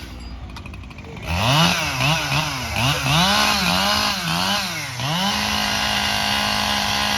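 Two-stroke Echo CS-7310P chainsaw with its engine revved up and down several times, the pitch rising and falling, from just over a second in. From about five seconds in it is held steady at high speed. The first second is quieter, with a few clicks.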